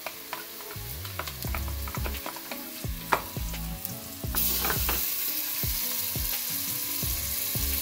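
Sliced onion frying in hot olive oil in a pot, with sharp clicks of a spoon against the pot. About four seconds in, the sizzling suddenly grows louder as ginger-garlic paste goes into the hot oil.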